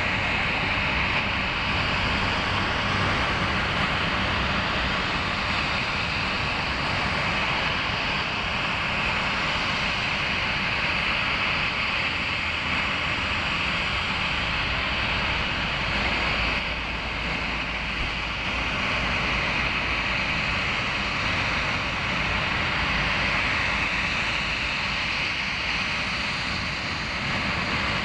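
Jet aircraft engines running with a steady, continuous rush that is strongest in a high band, with a brief slight dip about two-thirds of the way through.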